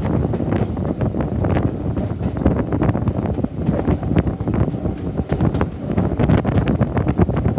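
Wind buffeting the microphone held out of a moving heritage railway carriage, over the running noise of the train: a steady low rumble with rapid clatter and knocks from the coaches' wheels on the track.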